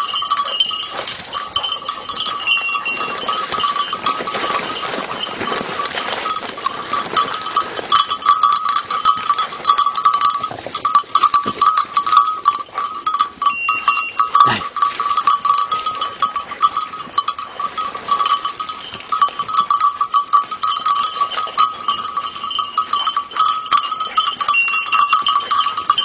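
A hunting dog's collar bell rings almost without a break as the dog works through dense bramble, which means it is moving and not on point. Brush rustles around it, and there is one sharp crack about fourteen seconds in.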